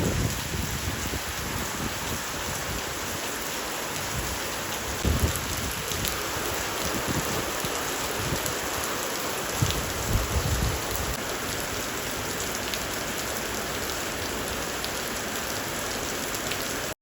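Steady heavy rainfall, an even hiss, with brief low rumbles about five and ten seconds in that may be distant thunder.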